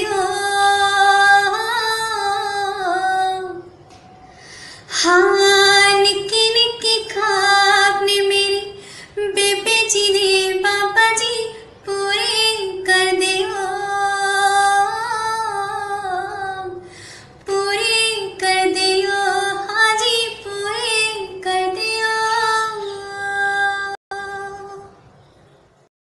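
A young woman singing a Punjabi song solo without accompaniment, in long held phrases with ornamented turns of pitch. She breaks off briefly about four seconds in and again around seventeen seconds, and the last phrase fades out near the end.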